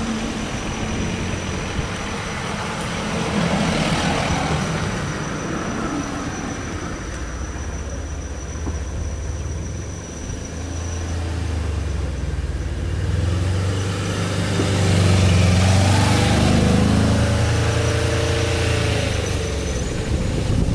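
Road vehicles passing: a car goes by near the start, then a small box truck's engine grows louder in the second half, loudest a few seconds before the end as it drives past.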